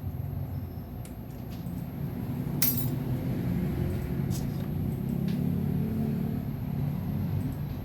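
A few sharp clicks of small hard parts being handled, the loudest about two and a half seconds in, over a steady low machine hum.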